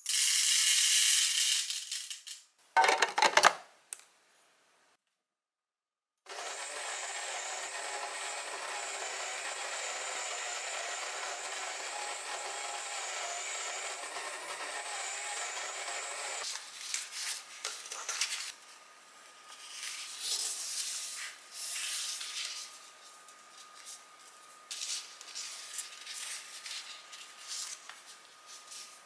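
Coffee beans poured rattling into the hopper of a De'Longhi electric coffee grinder, then a knock. After a short gap the grinder's motor runs steadily for about ten seconds, grinding the beans, and stops abruptly. Then soft, scattered rustling and taps of paper being smoothed and folded on a tabletop.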